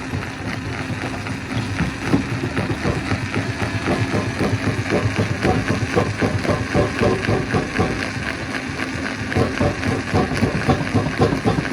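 Stone crusher running: a steady machine drone under a dense, irregular clatter of rock being knocked and broken, growing a little louder toward the end.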